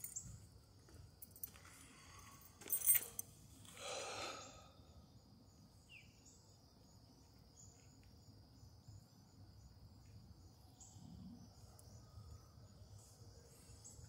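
Faint outdoor ambience: insects trilling steadily at a high pitch, with a couple of brief rustles in the first few seconds and a single short chirp about six seconds in.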